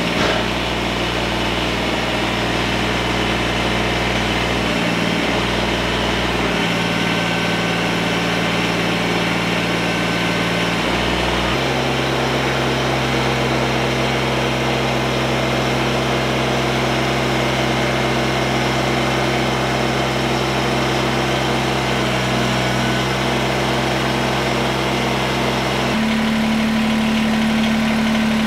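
Kubota compact tractor's diesel engine running steadily while its front loader holds up a wood stove on straps. The engine note steps to a new pitch several times, and it is a little louder and higher near the end.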